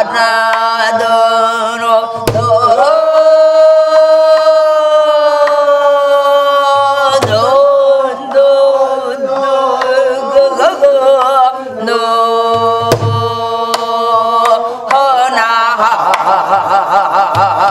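Korean gueum, wordless vocal mouth-music, sung in long held notes that waver, with a few low drum strokes beneath.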